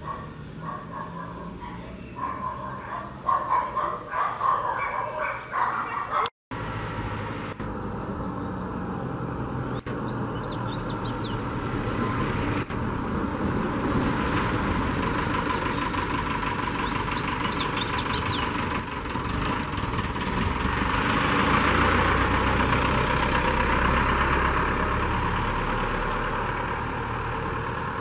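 Broad rumble of a passing motor vehicle swells to a peak about three-quarters of the way through and then eases off. Over it, a double-collared seedeater (coleiro) gives a few short runs of quick, high-pitched song notes. The sound drops out for an instant about six seconds in.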